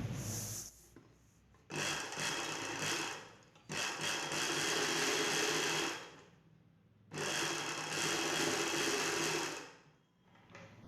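Sewing machine running in three bursts of stitching, each a couple of seconds long, with short pauses between them.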